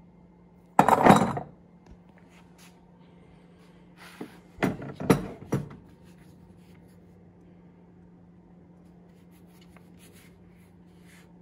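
Handling noise: a loud short rub or knock about a second in, then a cluster of three or four knocks and rubs between four and six seconds in, followed by a few faint ticks.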